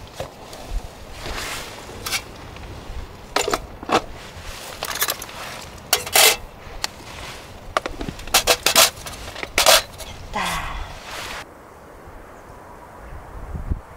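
Clear plastic lid and cook pot being handled: a string of clicks and clacks, some ringing briefly, with a gliding scrape near the middle. The handling stops about two-thirds of the way through, leaving a steady low outdoor background.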